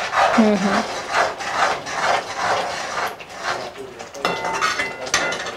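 Wooden spatula stirring and scraping thick curry gravy around a metal kadai, in repeated rubbing strokes.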